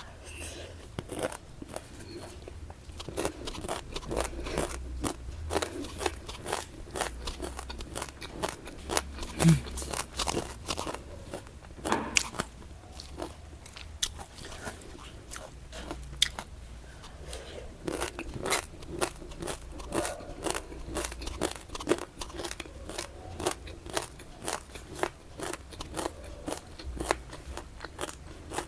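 Crunchy food being bitten and chewed close to the microphone: a long run of crisp, irregular crunches.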